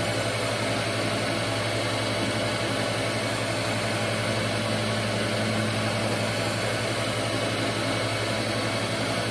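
Surface grinder running, its wheel on a freshly balanced SOPKO hub taking a light test grind across a metal piece as the table traverses: a steady motor hum with an even hiss.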